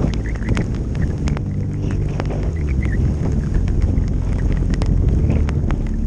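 Skis running down a snowy piste with wind rushing over the camera microphone: a steady low rumble with scattered sharp clicks throughout.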